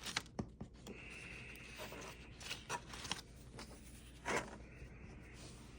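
Pages of a paper planner refill being turned and handled: faint paper rustling with several light clicks and brief sliding hisses.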